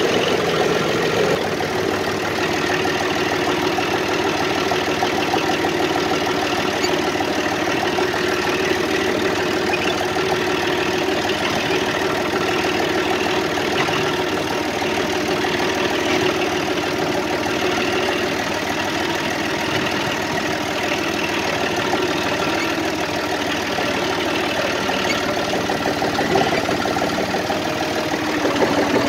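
Green farm tractor's engine running steadily, heard from the driver's seat as the loader tractor is driven over dirt; it gets a little louder near the end.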